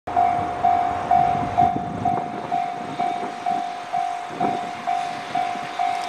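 Railway level-crossing warning alarm ringing, one tone struck over and over about twice a second, each strike fading before the next. It signals that a train is approaching the crossing.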